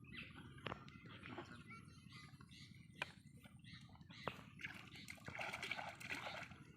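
Faint water sloshing and splashing, with scattered short clicks and a busier patch of splashing near the end.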